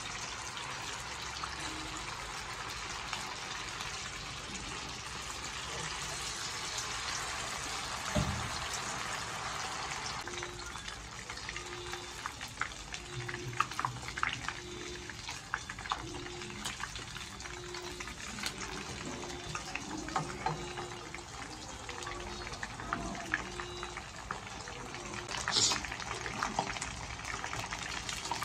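Marinated chicken pieces deep-frying in hot oil in a wok-style pan: a steady sizzle with crackles and pops throughout, and a sharp knock about eight seconds in.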